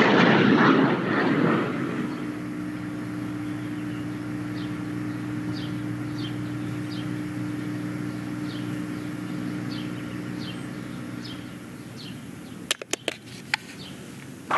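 A vehicle passes and fades away, leaving a steady low hum. A bird chirps repeatedly, and a few sharp clicks sound near the end.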